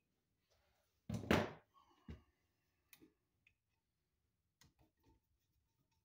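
Small handling sounds of a wall switch being worked with a screwdriver while its terminal screw is tightened down on the wire: one louder scrape about a second in, a click shortly after, then a few faint clicks and taps.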